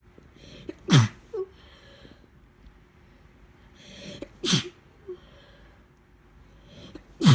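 A woman's wet, congested sneezing fit from a chest cold: three sneezes about three seconds apart, each after a quick breath in and each ending in a vocal sound that drops in pitch. The last one falls at the very end.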